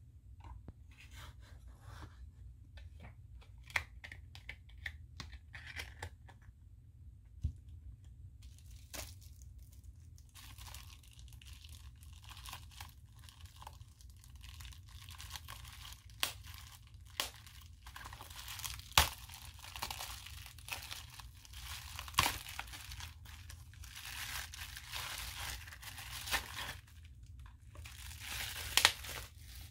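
Plastic bubble wrap crinkling and crackling as it is pulled open and unwrapped from a small box, with a few louder sharp cracks. The first several seconds hold only scattered small clicks and taps of handling.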